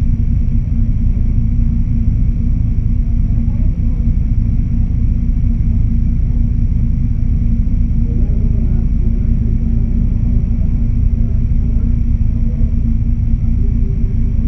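Steady low rumble of a 1997 Honda Civic 1.5's four-cylinder engine idling, heard from inside the stripped-out race car's cabin.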